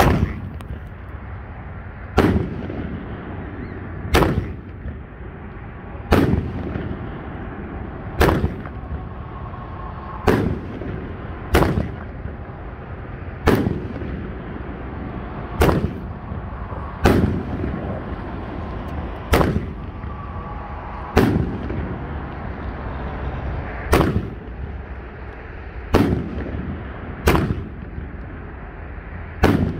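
A 16-shot Skittles consumer firework cake firing shot after shot, one sharp bang roughly every two seconds, with a steady rushing noise between the shots.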